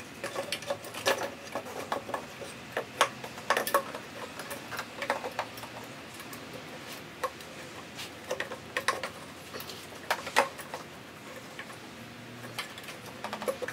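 Irregular clicks and knocks of hard parts tapping together as an aluminium charge pipe is worked by hand into place in an engine bay. The knocking comes in clusters, busiest in the first few seconds and again past the middle.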